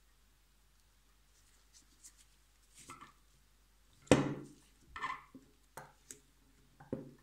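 Gloved hands handling a model ship while fitting small parts: scattered light taps, clicks and rubbing, with the loudest a single knock about four seconds in.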